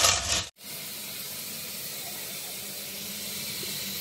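Small white pebbles clattering as hands rub them in a tray, cut off suddenly about half a second in, then a tap running steadily into a stainless steel sink.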